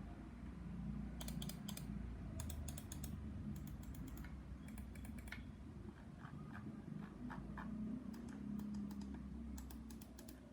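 Mouse buttons on Kailh GM Red switches clicking in quick bursts of several clicks, over a low steady hum.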